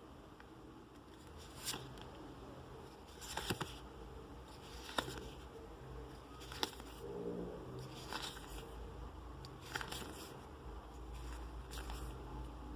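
Trading cards being handled and laid down one at a time, with a light snap or tap about every second and a half over a low steady hum.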